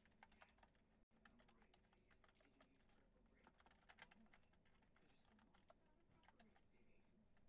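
Faint typing on a computer keyboard: irregular runs of light key clicks.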